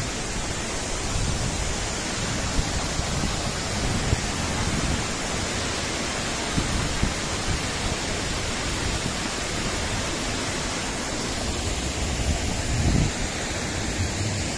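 A 40-metre waterfall and the rocky stream below it rushing steadily: a constant, even roar of falling water.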